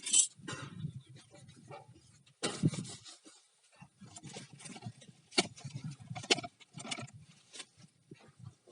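Bottles, a can and small metal hardware being handled and set down: irregular knocks and clinks, a few of them sharp, over low shuffling noise.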